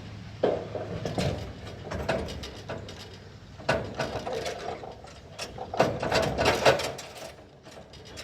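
Irregular mechanical clatter: a series of knocks and rattles, with the sharpest knocks about half a second in, near the middle, and in a cluster a little before the end.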